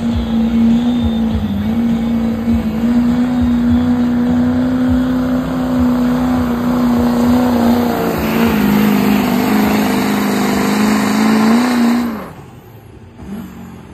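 Diesel pickup truck engine held at full throttle on a truck-pull run, a loud, steady high drone that dips slightly in pitch now and then. About twelve seconds in it cuts off sharply, leaving a much quieter engine sound.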